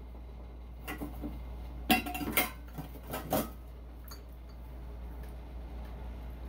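Beer cans clinking and knocking against each other as they are sorted out of a box, a run of sharp metal knocks in the first half with the loudest around two seconds in, then a few faint ticks.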